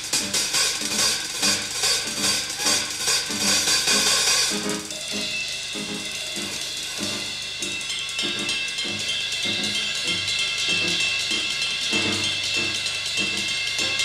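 Jazz drum kit solo. For the first few seconds there are dense cymbal crashes and drum hits. After that comes a steady run of tom strokes at varying pitches under a ringing cymbal.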